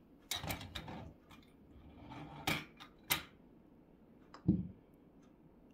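Plastic clicks and clacks of a 3D-printed golf ball dispenser as a putter pushes against it and a golf ball is released, with a cluster of rattling clicks in the first second and single sharp clicks a little later. A dull thud comes about four and a half seconds in.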